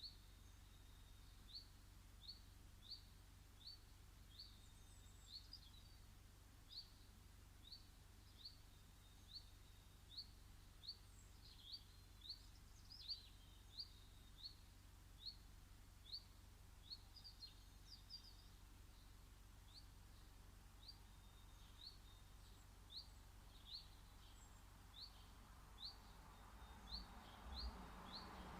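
A small bird repeating one short, rising chirp at a steady pace, a little more than once a second, with a few other faint bird calls in between. Faint, over a steady low background hum.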